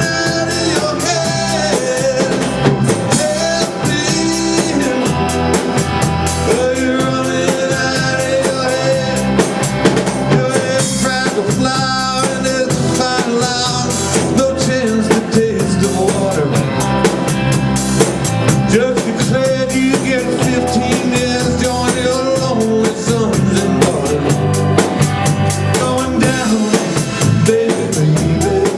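Band playing live: a drum kit keeping a steady beat on snare and bass drum under a full band, with a wavering melody line on top.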